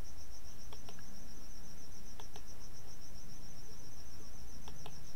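Insect chirping steadily in a high, quick, evenly spaced pulse, with a few faint clicks.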